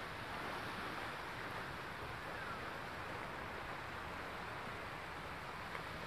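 Steady seaside ambience of gentle surf washing on a shallow shore, mixed with a light breeze, heard as an even hiss with no distinct breaks.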